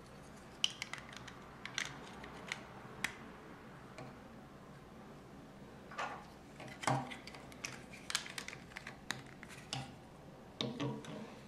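LEGO plastic bricks clicking and rattling as they are handled and pressed onto a model car chassis: a scatter of sharp clicks in the first few seconds, then a busier run of clicks and rattles from about six seconds in.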